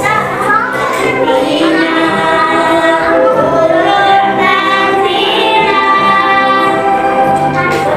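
Music: a song sung by voices with accompaniment, the sung notes held and gliding in pitch.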